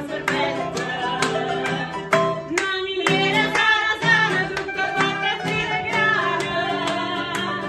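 A mandolin and an acoustic guitar playing a tune together, with people singing along.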